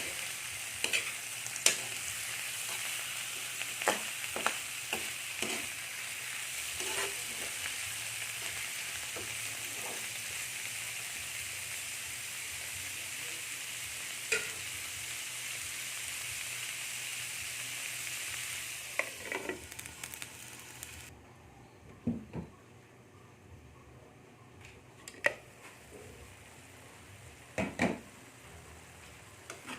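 Squid frying in a pan with a steady sizzle, while a utensil stirs and knocks against the pan. The sizzle stops abruptly about two-thirds of the way through, leaving a few scattered knocks and scrapes of the utensil.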